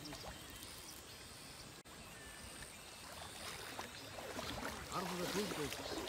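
Faint sloshing and splashing of legs wading through knee-deep river water. A voice calls out in the last couple of seconds.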